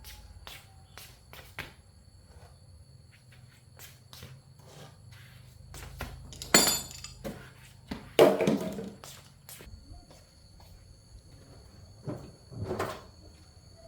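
A series of scattered knocks and clatters from objects being handled and set down, the loudest two about six and a half and eight seconds in, with a smaller pair near the end.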